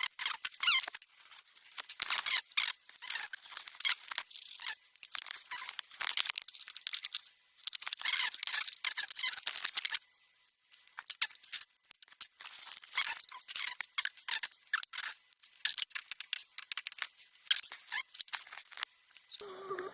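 Hand work on the compressor's electric motor parts: a busy, irregular run of small clicks, scrapes and squeaks of tools and metal parts being fitted together.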